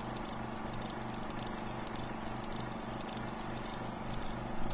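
A steady mechanical whir with hiss and a low hum that pulses evenly a few times a second.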